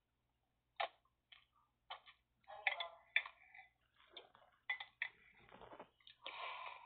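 Metal spoon clinking and scraping against a bowl while eating, a series of irregular sharp clicks with a few longer scrapes.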